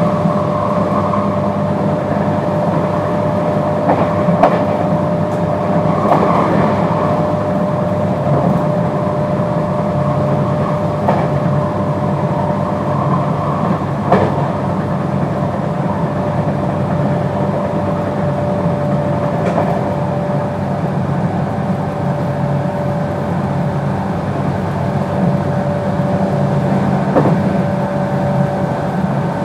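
JR West 221 series electric train, with field-added excitation control, running at a steady speed, heard on board: a steady drive whine over a low rumble, with a few sharp clicks from the wheels over the rails.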